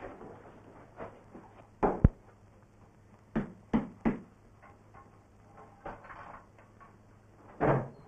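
Bread dough being handled and dropped on a floured wooden table: a handful of dull thumps, the loudest about two seconds in, three close together a little later and another near the end, over a steady low hum.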